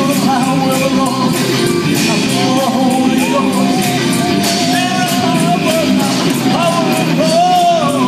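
Live rock-style gospel band: a man singing a held, wavering melody over electric guitars and drums with a steady beat.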